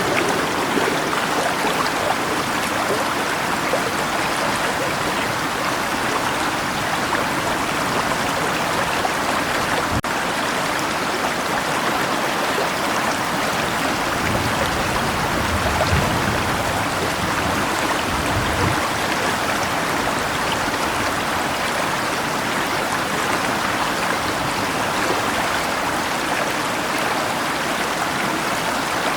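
River water rushing steadily with rain falling, an even hiss of water. A soft low rumble comes and goes about halfway through.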